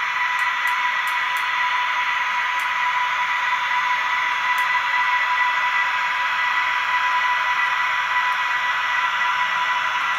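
Model electric locomotive and freight wagons running along the track: a steady whine with an even hiss.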